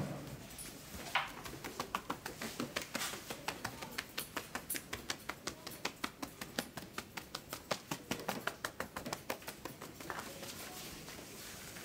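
Quick, even hand slaps on a forearm through a shirt sleeve, about four or five a second: percussive massage strokes. They stop about ten seconds in.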